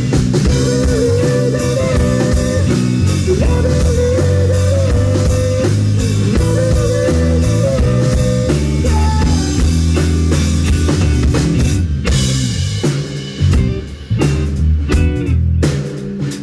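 Live rock band playing: electric guitar, bass and drum kit, with a sustained lead melody through the first half, then the band breaking into choppy, stop-start hits from about twelve seconds in.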